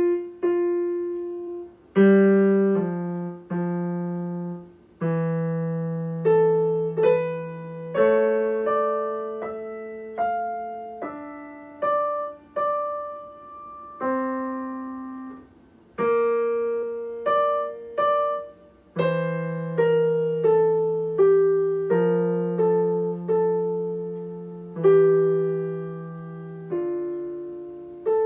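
Digital piano played solo by a child. A melody of single struck notes sounds over held bass notes, each note fading after it is struck, in short phrases with brief pauses between them.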